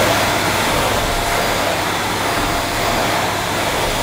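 Vax Mojo II bagged cylinder vacuum cleaner running steadily at full power, its motor giving a constant whine over the rush of suction air, with the floor nozzle on carpet.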